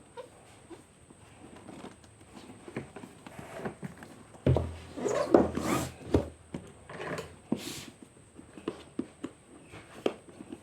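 Handling noises: scattered light clicks and rustling, with a louder rustle and a dull thump about halfway through.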